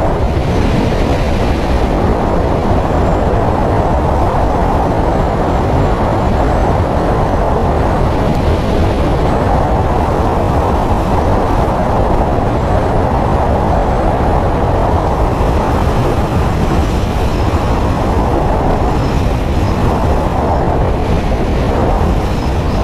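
Steady, loud road noise of a moving vehicle, a dense, unchanging rumble with no distinct events.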